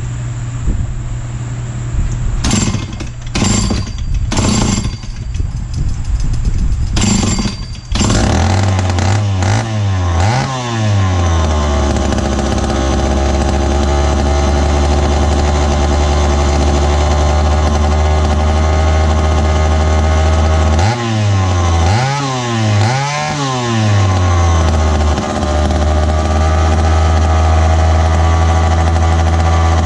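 Dayton 2Z383 (Lancaster 40IL) two-stroke chainsaw pulled on its starter cord several times and catching about eight seconds in. It then idles steadily, revved up and down a few times just after starting and again about 21 seconds in.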